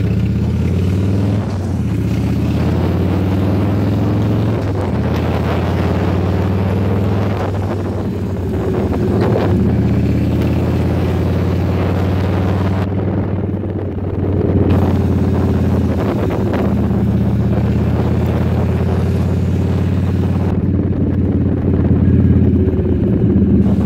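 Cruiser motorcycle engine running steadily at road speed, heard from the rider's seat, with small swells as the throttle changes through the curves.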